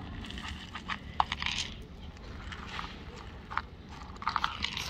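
Cat crunching dry kibble from a plastic cup, crisp irregular clicks and crackles. Near the end, a quick cluster of rattles as dry kibble spills from the tipped cup onto paving stones.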